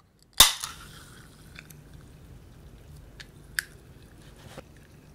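Ring-pull of a can of carbonated ghost pepper cola snapping open with one sharp pop, followed by a hiss of escaping gas that fades over about a second. A few faint clicks follow.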